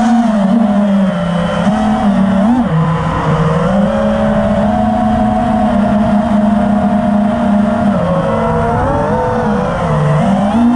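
Four brushless motors and props of a 5-inch FPV racing quadcopter (T-Motor F60 V3 2350 kV) buzzing in flight, the pitch stepping down and back up several times with throttle changes.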